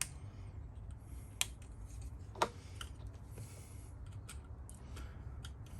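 Scattered small clicks and ticks of a plastic electrical connector being handled and worked apart by hand, over a faint low hum; the sharpest click comes about two and a half seconds in.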